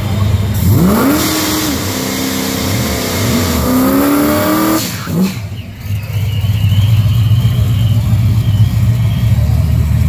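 A Ford Maverick drag car's engine revs up sharply about a second in and holds high revs with a loud hiss of spinning tyres through a burnout. It cuts off just before halfway, then runs steadily at low revs as the car rolls forward.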